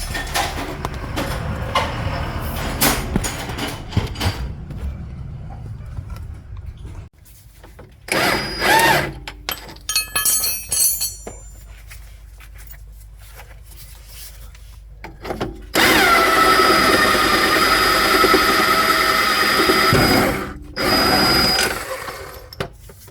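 Power tool run on the 24 mm shock absorber bolt of a Ford Territory's front suspension: a short burst about eight seconds in, then a loud steady run of about four seconds and a shorter one near the end as the bolt comes undone. Clatter of tools and parts being handled comes before.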